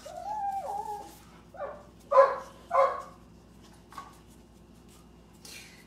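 A dog whining in a long wavering note, then giving three short barks in quick succession about two seconds in.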